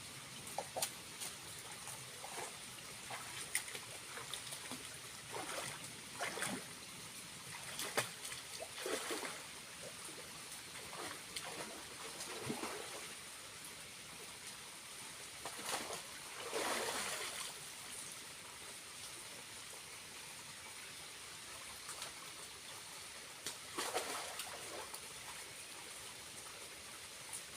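Small waterfall trickling steadily, with irregular splashes of water over it, one longer splash just past halfway.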